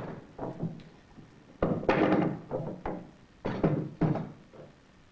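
A series of dull knocks and thunks on wood, coming in uneven clusters, with the loudest groups in the middle and near the end.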